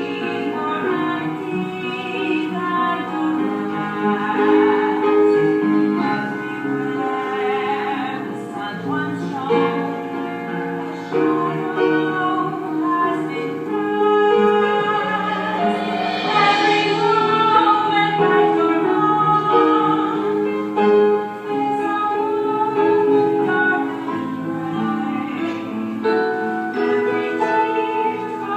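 A slow ballad with sustained instrumental accompaniment and a woman's singing voice.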